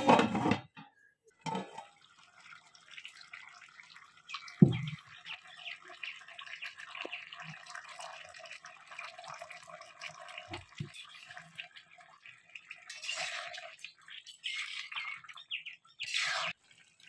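Spiced turkey curry simmering in a pan, its gravy bubbling and popping in a dense, fine patter as the meat cooks through in water. A single knock comes about four and a half seconds in.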